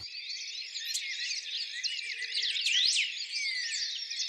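A dense chorus of songbirds, many quick chirps and whistles rising and falling over one another. It comes in suddenly at the start.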